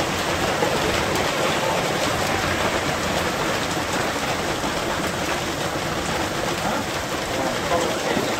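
Heavy rain mixed with small hail falling steadily, a dense, even patter of drops and hailstones striking the wet street and nearby surfaces.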